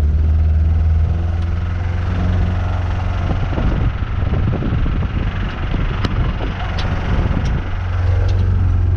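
Ford Ranger engine running with a steady low hum while the truck is driven. From about three seconds in to seven and a half seconds in the sound turns rougher and choppier, with a few sharp clicks near the end of that stretch.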